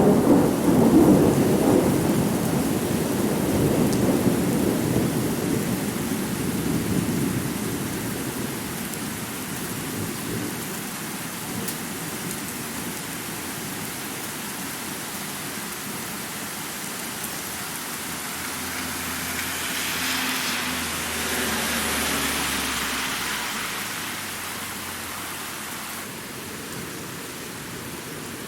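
Thunderstorm with steady rain throughout. A loud roll of thunder fades away over the first several seconds, and a second, softer swell builds and dies away about twenty seconds in. The bass end is very thin.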